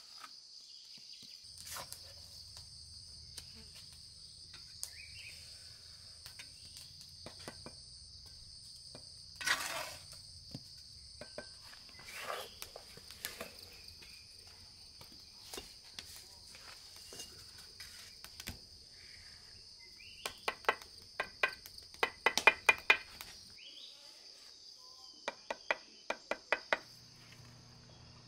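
Steel bricklaying trowel scraping wet mortar and tapping clay bricks as they are set, with scattered knocks and two quick runs of sharp taps in the second half. A steady high insect chorus goes on behind.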